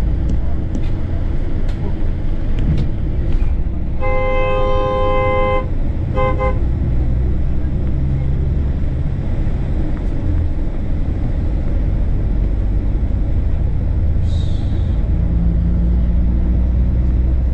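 A vehicle horn honks: one long blast of about a second and a half some four seconds in, then a couple of quick short toots, over a steady low rumble of road traffic.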